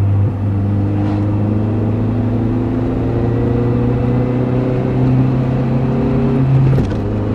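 Honda CR-V four-cylinder engine heard from inside the cabin, pulling in gear with its pitch slowly rising, then dropping sharply near the end as the manual gearbox is shifted up.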